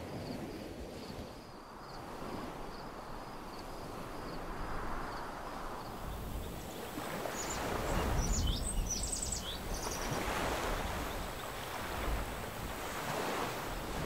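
Gentle sea waves washing against a shore, swelling and fading every couple of seconds, with wind rumbling on the microphone. A short run of high chirps is heard about seven to nine seconds in.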